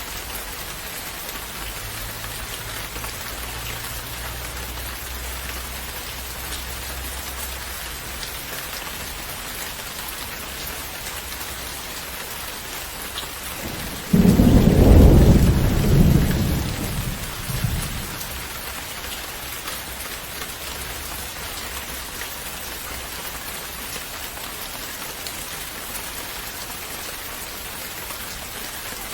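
Steady rain, with a single sudden thunderclap about halfway through that rumbles low and fades out over about four seconds.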